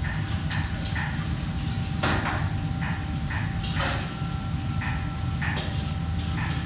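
Commercial kitchen clatter: metal pots, pans and utensils knocking and clinking every half second or so, loudest about two seconds in, over a steady low rumble of kitchen equipment and a faint steady tone.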